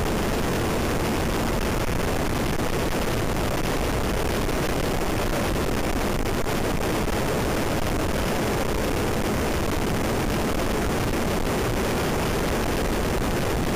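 Steady wind rush on the microphone of a camera mounted on a motorcycle riding at speed, with motorcycle and road noise blended in underneath. It holds at one level, with no distinct engine note or gear changes standing out.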